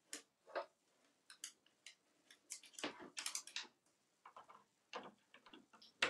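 Faint, scattered clicks, taps and scrapes of an African grey parrot's claws and beak on wooden vanity drawers as it climbs down between them, with a denser run of ticks about three seconds in.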